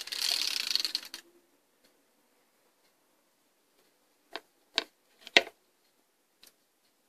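Homemade cardboard prize wheel spinning, its pointer ticking rapidly as it runs over the wheel for about a second. A few seconds later come four separate sharp clicks, the loudest about four and a half seconds in.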